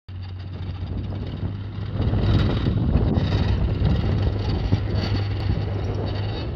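Takeuchi TB016 mini excavator's diesel engine running steadily, getting louder about two seconds in as the boom and bucket are worked.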